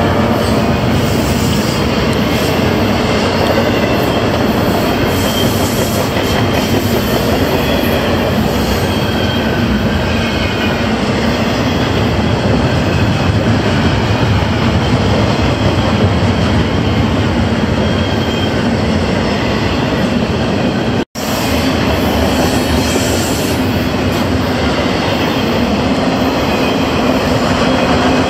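Double-stack intermodal freight train's cars rolling past at close range: steady noise of steel wheels on the rails. The sound cuts out for an instant about three quarters of the way through.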